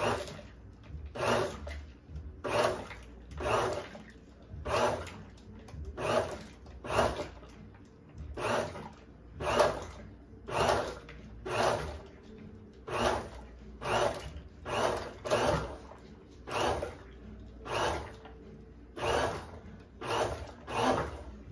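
Hamilton Beach Power Elite blender pulsing on a jar of crushed ice, strawberries and lemonade: about twenty short bursts, roughly one a second, with brief pauses between them.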